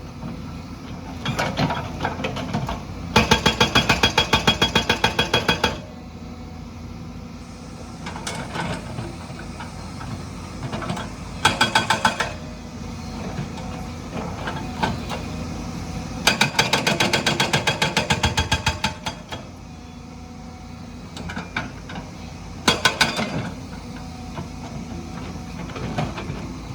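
Hydraulic stone breaker on a JCB hammering in bursts of rapid, evenly spaced blows, each burst lasting one to three seconds, about five times. The machine's engine runs between the bursts.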